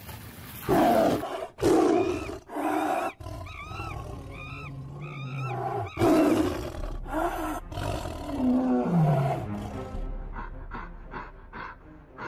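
Loud animal roars and cries over music: several heavy roars in the first three seconds and another about six seconds in, high arched cries between them, a long falling growl near nine seconds, then a quick run of short repeated calls near the end.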